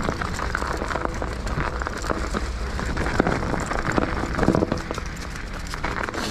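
Mountain bike on 2.8-inch plus tyres rolling over a snowy, leaf-covered trail: a steady crunching and crackling from the tyres, with the bike rattling over bumps and a few sharper knocks about three seconds in and again near four and a half seconds.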